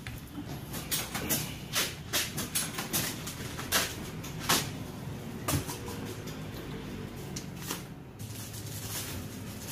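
Irregular clicks and light taps of paperwork and small items being handled on a pharmacy counter, thickest in the first few seconds and thinning out, over a steady low room hum.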